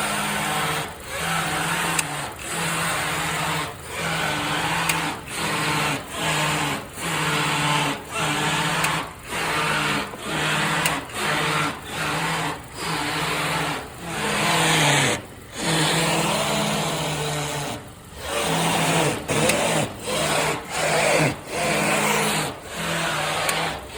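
Steering of a 2019 Honda being turned back and forth over and over, each turn bringing a short whine from the power steering with tyre scrub, about once a second, with two longer turns in the middle. This is the test for a popping from the driver-side front that is traced to a bad CV axle.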